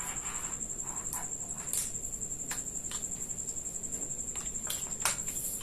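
Hands handling a keyboard and its cable: a few short clicks and rustles, over a steady high-pitched whine.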